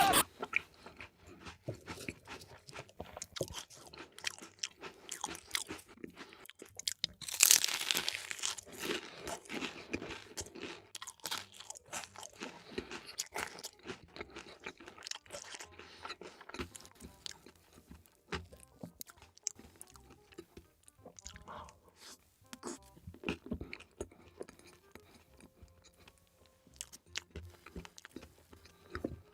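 Close-miked eating of crunchy food: crisp bites and chewing crunches. The loudest, densest crunching comes in a burst about seven seconds in and lasts about a second, then quieter chewing with scattered crisp clicks follows.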